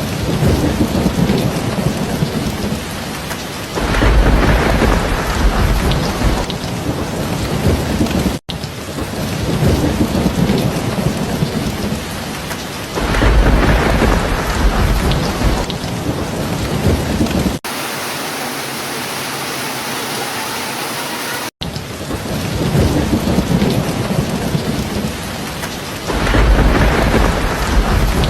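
Steady heavy rain with a low rumble of thunder swelling up three times, about every nine to ten seconds. Partway through, the rain cuts off abruptly into a few seconds of smoother, even hiss, then cuts back to rain and thunder.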